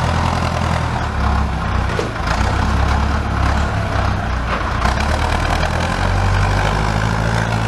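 Small tractor engine running steadily with a deep, even note.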